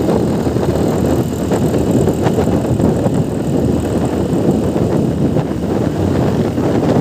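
Steady wind rush buffeting a phone's microphone on a moving motorcycle, mixed with the motorcycle's running noise.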